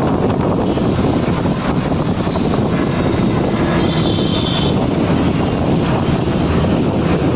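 Steady, dense road traffic noise, a continuous rumble of passing vehicles, with a faint brief high-pitched tone about four seconds in.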